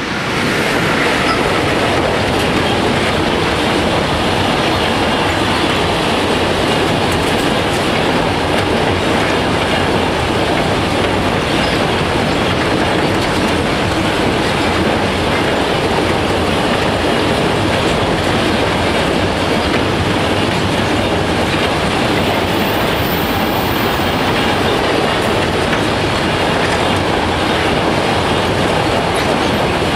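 Lineas freight train of enclosed double-deck car-carrier wagons rolling past close by: a loud, steady rush of wheels and wagons on the rails, swelling up just as the train arrives.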